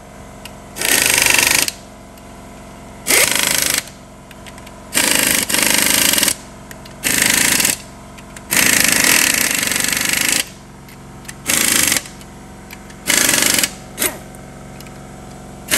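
Impact wrench running in about ten short bursts, each from a fraction of a second to about two seconds long, with brief pauses between, as the nuts on a Top Fuel dragster's clutch pack are run down.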